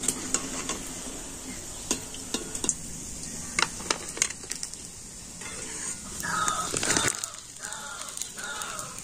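Metal slotted spatula clicking and scraping against the wok and a plate as fried balushahi are lifted out of the oil, over a light sizzle. From about six seconds in, crows cawing over and over.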